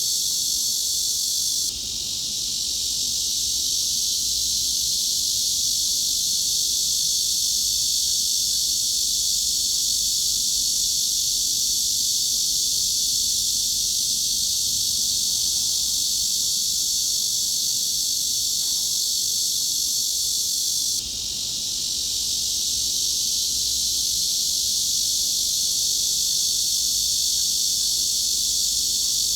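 Cicadas buzzing in a high, even drone. The level drops briefly about two seconds in and again about twenty-one seconds in, then swells back.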